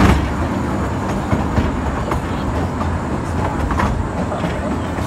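Dry Gulch Railroad amusement-park train rolling along the track, heard from an open passenger car: a steady low rumble of the cars with a few sharp clicks from the wheels on the rails.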